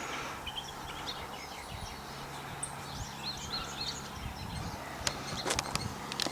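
Small birds chirping and twittering in the background, many short calls overlapping, with a few sharp clicks near the end.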